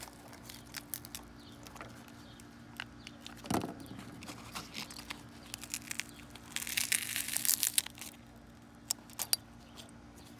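Pieces of a crushed Samsung Galaxy S7 being handled: scattered small clicks and crinkling, a louder knock about three and a half seconds in, and a longer rustle around six to eight seconds in, over a steady low hum.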